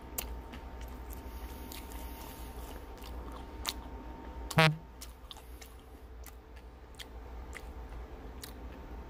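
Close-up chewing of a mouthful of double cheeseburger, with many small wet mouth clicks. About four and a half seconds in, a short, louder sound drops sharply in pitch.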